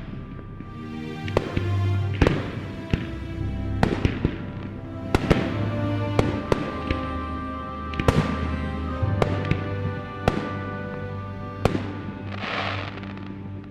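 Fireworks exploding in sharp bangs, roughly one a second, over music with sustained notes, with a crackling burst near the end.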